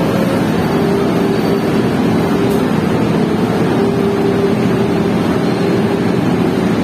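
Passenger train in motion: a steady, even rumble with a faint steady hum running through it.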